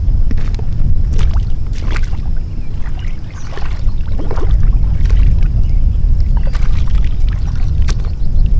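Water splashing and sloshing as a man wades in rubber boots through lake shallows and lets a carp go, with irregular sharp splashes throughout. A heavy low rumble of wind on the microphone runs underneath.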